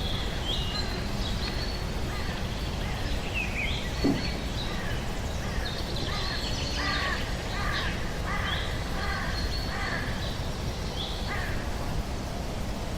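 Outdoor bird ambience: high chirps and whistles, with a run of repeated harsh caws about once a second in the middle, over a steady background hiss.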